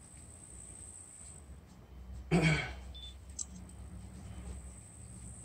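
A single short cough close to the microphone about two seconds in, over a steady high chirring of insects and a faint low rumble.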